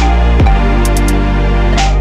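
Electronic background music: a deep bass note held throughout, with short hi-hat-like ticks over it.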